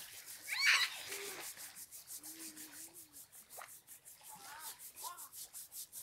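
A hand brushing and rubbing sand off a bare foot: a run of quick, even rubbing strokes, several a second.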